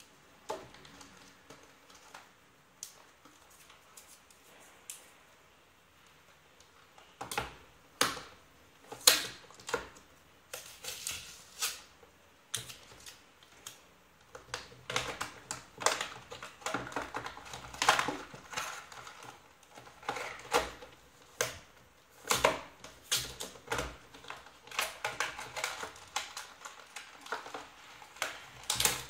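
Cardboard smartwatch box and its packaging handled and opened by hand on a desk: scattered clicks, taps and crinkling of cardboard and plastic. Only a few faint clicks at first, then frequent, louder handling noise from about seven seconds in.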